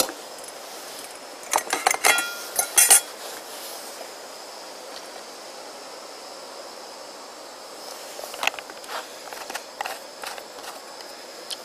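A steel pot lid clatters and rings against a cooking pot a couple of seconds in, over the steady hiss of a gas camping stove. Water is then poured into the pot, and a few lighter clicks come near the end as a plastic water canteen is handled.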